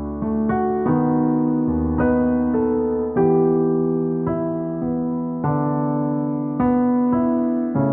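Slow, gentle piano music: held chords with a new note or chord struck about once a second, each fading slowly.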